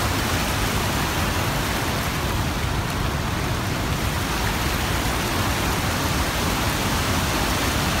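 Narmada River rapids rushing over rocks just above Dhuandhar Falls: a loud, steady rush of white water.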